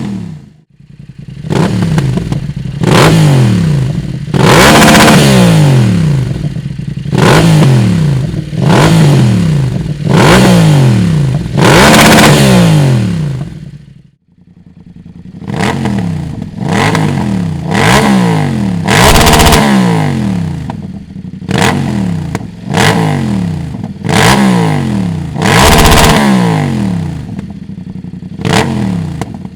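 BMW F900R parallel-twin motorcycle engine being revved repeatedly through its exhaust, one sharp blip every couple of seconds with the pitch falling back each time. Crackles and pops run through the revs. There is a brief break about halfway through.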